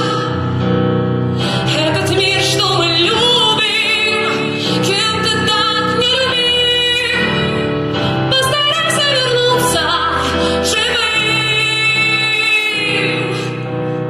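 A song with a backing track, and a woman's voice singing long, wavering held notes without recognisable words.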